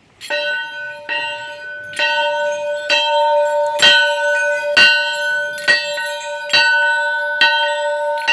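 Large temple bell struck over and over by its clapper, about once a second, about ten strikes in all. Each stroke rings on with the same bright, steady tones, so the ringing overlaps into a continuous peal.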